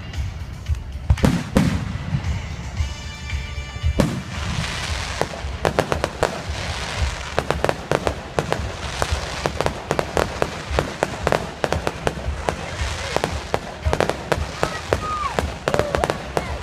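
Fireworks going off: a few sharp bangs in the first few seconds, then from about four seconds in a dense, rapid run of crackling pops, like a string of firecrackers.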